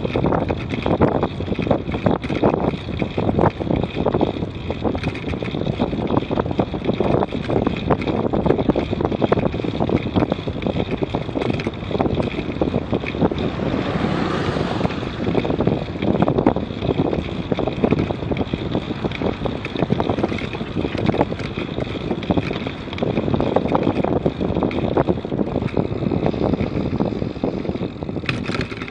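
Wind buffeting the microphone of a bike-mounted camera while cycling at about 25 km/h, with frequent knocks and rattles from the path surface.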